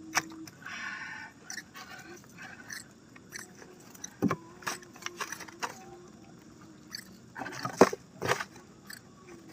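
Nylon drift gillnet being hauled aboard a boat and fish picked out of the mesh by hand: rustling and scraping of the net with scattered knocks and taps against the boat. The loudest is a pair of knocks a little before the end.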